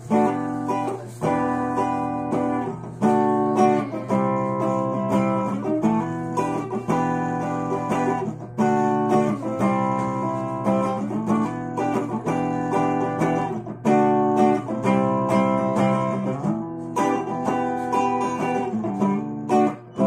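J-Craft Telecaster-style electric guitar played clean through a small 10-watt practice amp with no effects: chords picked and strummed, changing every second or two, over a steady low hum.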